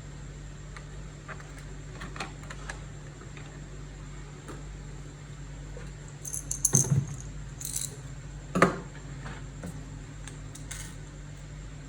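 Small hard objects clicking and clattering as they are handled: a few light clicks, then a quick cluster of rattling clicks a little past halfway and one sharp knock soon after, over a steady low hum.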